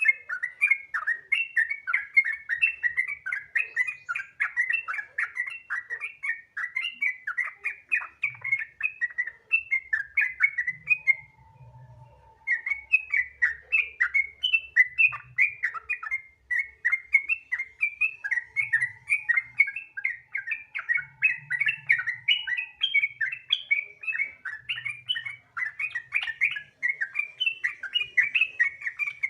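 Yellow-vented bulbul singing in long fast rolling runs of short chattering notes (the 'gacor ropel' song kept-bird owners prize), with one short break about eleven seconds in.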